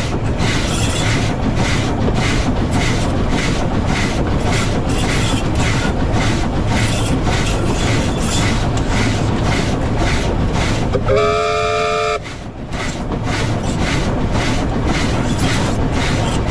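W class steam locomotive running along the track, a steady rhythmic beat about three times a second over a constant rumble. About eleven seconds in, its chime steam whistle sounds once for about a second.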